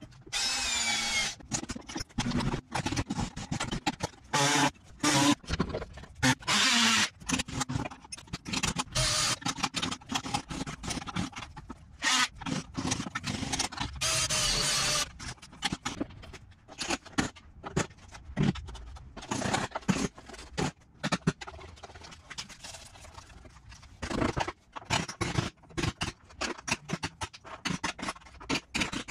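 A power cutting tool cutting into rusted sheet-metal body panel in short bursts, stopping and starting. Its whine rises and falls in pitch as it loads up in the metal.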